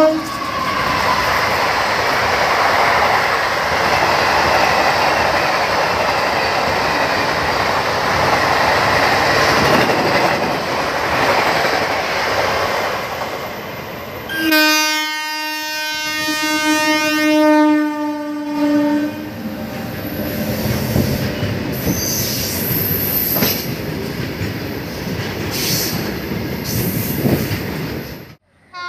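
Indian Railways WAP-4 electric locomotive and express coaches passing at high speed: a loud, steady rush of wheels on rail. After a cut, an approaching train sounds its two-tone horn for about four seconds, then a long rake of covered freight wagons runs past with wheel clatter.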